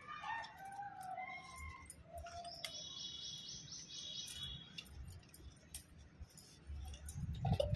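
Faint birdsong: wavering calls in the first two seconds, then a quick trill of repeated high notes about three to four seconds in, with light scattered clicks.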